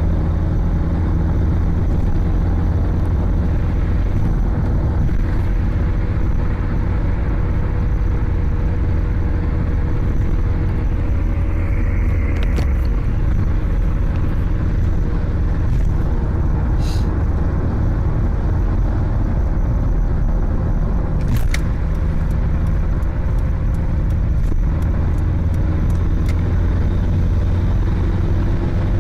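Mitsubishi Lancer Evolution wagon (CT9W) on the move, a steady low rumble and drone with a faint constant hum, the abnormal noise of a left rear wheel hub bearing with play in it: the bearing is worn. A few light clicks come and go.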